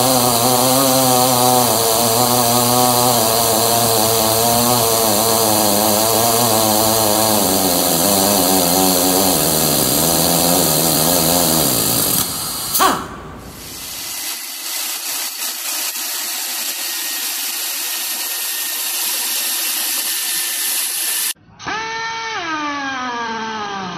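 Hose-fed TorcUP power torque wrench running on a truck's wheel lug nuts, its motor pitch rising and falling as it works under load. About halfway through there is a sharp click, then a quieter steady hum; near the end a short whine falls in pitch.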